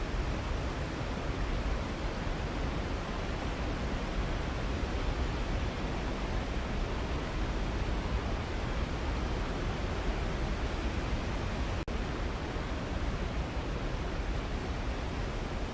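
Waterfall: a steady rush of falling water, heaviest in the low end, that cuts out for an instant about twelve seconds in.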